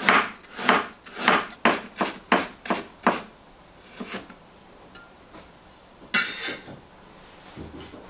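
Chinese cleaver slicing ginger on a wooden cutting board: about eight quick chops in the first three seconds, each blade knocking on the wood, then a single chop about four seconds in. A brief scraping sound follows a little after six seconds.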